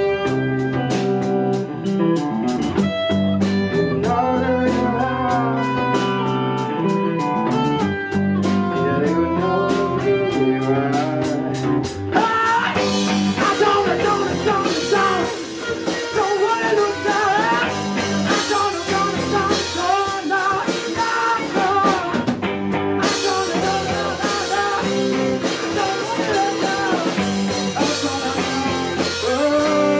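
Live rock band playing a guitar-led song, loud and continuous. The texture thickens into a fuller band sound about twelve seconds in.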